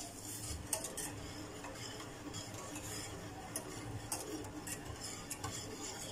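Wire whisk stirring hot sugar-and-glucose syrup in a stainless steel saucepan, the wires giving irregular light clinks and scrapes against the metal pan.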